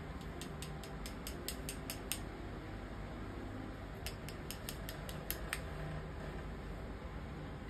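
Quick, light clicking of makeup tools being handled, in two runs of about five clicks a second, over a low steady hum.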